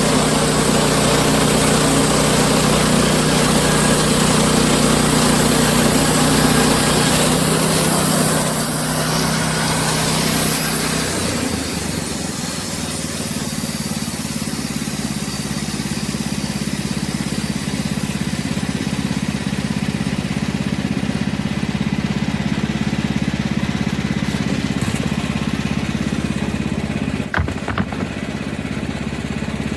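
Wood-Mizer LX50 Super portable band sawmill running, its engine working as the band blade saws through a sappy larch log. The engine note drops and the sound gets quieter about ten seconds in, and a couple of short knocks come near the end.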